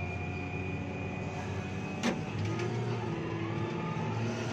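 Cat 950G wheel loader's diesel engine running, heard from inside the cab, with a steady high whine that stops about two seconds in. A sharp knock follows, and the engine's note shifts.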